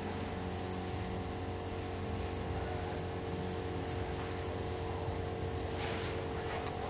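A steady mechanical hum with a low rumble and two faint steady tones, like machinery running on a building site. A brief faint rustle about six seconds in.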